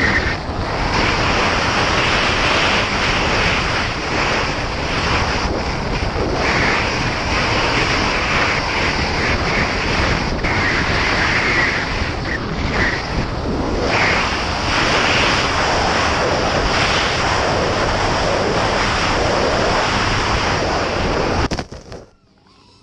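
Airflow rushing over the onboard camera of a Juggernaut 8S FPV flying wing in fast low flight, with the whine of its electric motor and propeller coming and going. Near the end it comes down into the grass with a knock, and the rushing cuts off suddenly.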